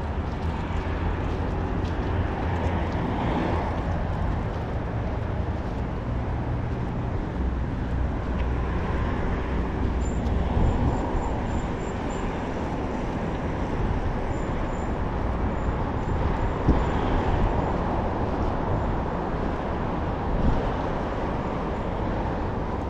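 Street traffic: cars passing by with a steady rumble of engines and tyres, swelling as vehicles go past.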